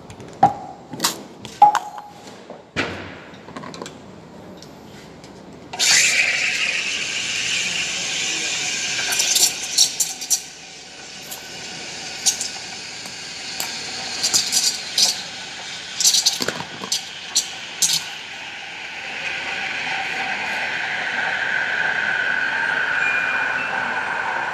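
Sharp metal clinks of a stainless steel milk pitcher, then the espresso machine's steam wand hissing for about four seconds, with more clinks. Near the end, a steadier hiss with a steady whistling note as milk is steamed in the pitcher for a latte.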